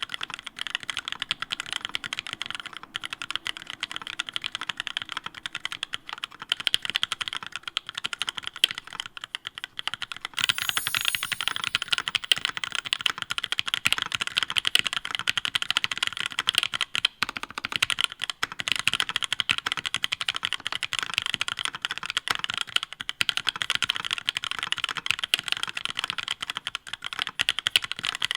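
Continuous typing on a mechanical keyboard fitted with ePBT (PBT plastic) keycaps: a dense, rapid stream of keystroke clicks that grows louder and busier about ten seconds in.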